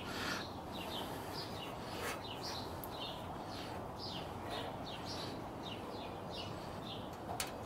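Birds chirping: a series of short, high, falling chirps, one every half second or so, over a faint steady background hiss, with a single sharp click near the end.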